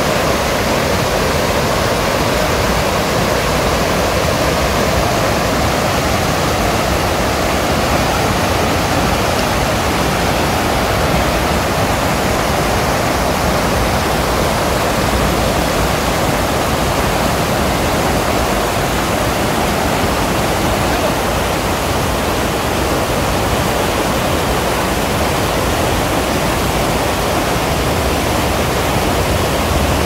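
River water rushing and splashing over and between a row of stepping stones, a steady, unbroken rush.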